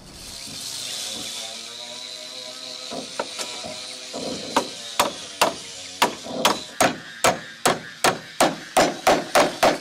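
Claw hammer striking a wooden post in steady blows, about two or three a second. The blows start a few seconds in, after a steady high hiss.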